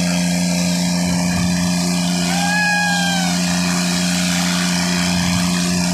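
Tractor's diesel engine running at a steady pace under way, a constant drone. A brief higher tone with a slight rise and fall sounds once, about two seconds in.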